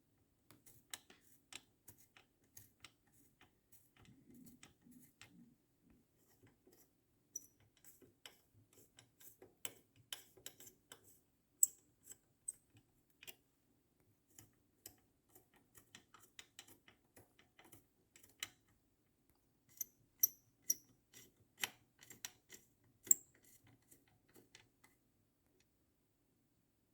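Scattered, irregular small clicks and ticks of hands handling tools and parts on an electronics board, a few of them sharper and louder.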